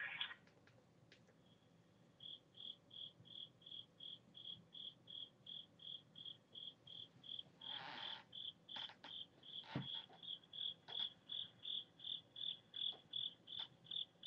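Flip phone giving off a faint, even series of short high beeps, about two and a half a second, starting about two seconds in. A few clicks and a brief rustle come partway through.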